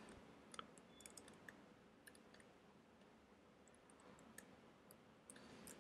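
Faint, scattered keystrokes on a computer keyboard, heard as soft separate clicks over near silence.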